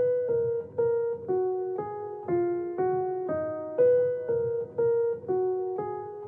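Background music: a slow melody of single keyboard notes, about two a second, each fading before the next.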